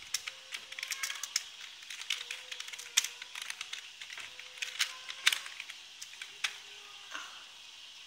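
Computer keyboard typing: irregular keystroke clicks, a couple of them struck harder, over a faint steady tone.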